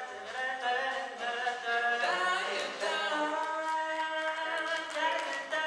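Male a cappella vocal quartet singing in close harmony, with no instruments; the voices move through quick note changes, then settle into a sustained chord for the second half.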